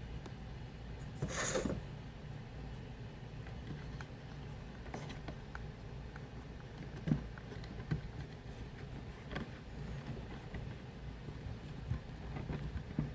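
Faint handling sounds while kitchen prep is set up: a short rustle about a second and a half in, then scattered light knocks and clicks of things being moved on a counter, the sharpest two near the middle, over a low steady hum.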